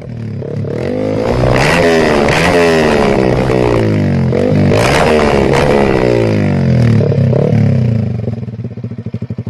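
Yamaha R15 V3's single-cylinder engine revved again and again through an SC Project underslung racing exhaust, its pitch rising and falling several times in quick blips. Near the end it drops back to a lower, pulsing idle.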